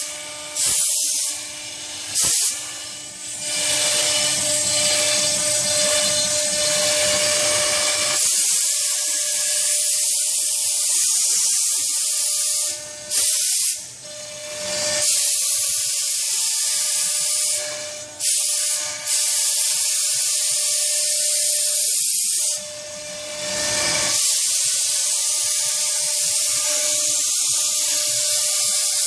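ShopBot CNC router's spindle running steadily while its bit cuts a curve through pink foam board: a steady hiss with a held mid-pitched whine, dipping briefly a few times.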